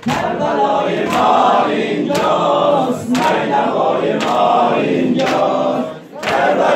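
A group of men chanting a mourning lament (noha) in unison, beating their chests with flat-handed slaps as they sing. The singing breaks off briefly near the end, then starts again.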